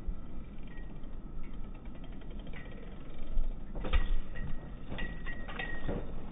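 Wind rumbling on the microphone, with a cluster of sharp clicks and knocks and short high squeaks between about four and six seconds in as a bicycle crashes at a dirt jump.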